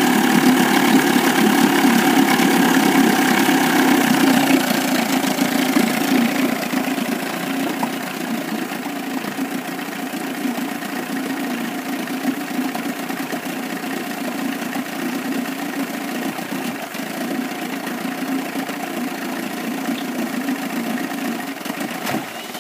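1998 Evinrude 25 two-cylinder two-stroke outboard idling at low speed, louder for the first few seconds and then quieter and steady. At low rpm it has a miss on the lower cylinder, which the owner has not traced despite good spark, compression and a cleaned carburettor.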